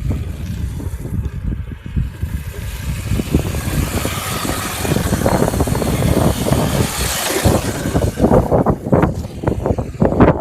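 Remote-control car being driven, its motor and tyres making a rough, uneven rumble, with a cluster of sharp knocks and rattles near the end.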